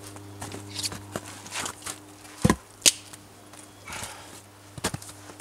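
Split firewood logs knocking against one another as they are set onto a woodpile: a few sharp wooden knocks, the loudest about two and a half seconds in.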